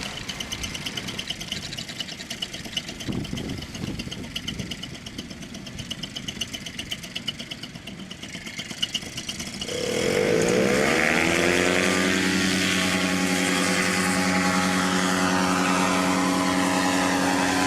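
Paramotor engine and propeller ticking over at low throttle, then opened up about ten seconds in: the pitch rises quickly and settles into a steady, louder run.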